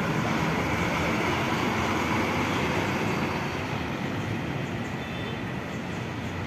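A large bus engine running close by, a steady low drone with traffic noise, slowly fading.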